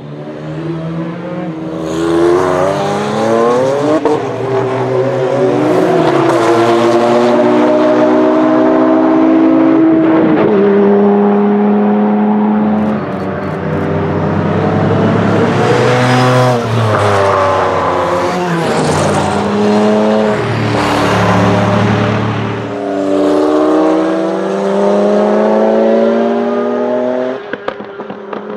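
Venturi 400 Trophy's 2,975 cc twin-turbo V6 racing engine under hard throttle as the car passes, its note rising through the revs and stepping down between gears. A few sharp cracks come through the exhaust about five seconds in and again around the middle.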